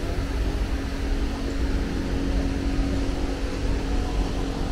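Subway platform ambience: a steady low rumble with a constant mechanical hum running through it.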